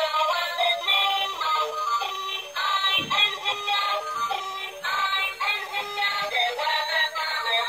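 A light-up toy train engine's built-in speaker playing a tinny electronic tune with synthesized singing, thin and without bass.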